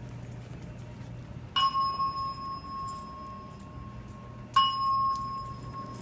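Two single chime dings about three seconds apart, each struck sharply and ringing away over a second or two, over a steady low hum.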